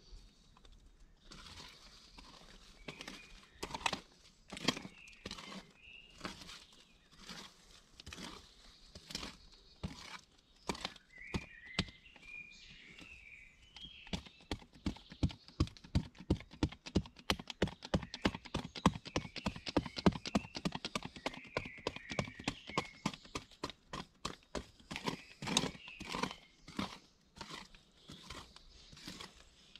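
Repeated sharp knocks or taps, running into a fast, even series of several a second for about eight seconds midway, with birds chirping.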